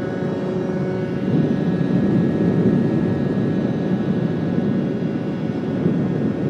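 MBK X-Limit 50cc two-stroke motorcycle, fitted with a Top Performance 50 kit and Voca Rookie exhaust, running at speed with a steady engine note under heavy wind rush on the rider's microphone. The wind and engine get louder about a second in.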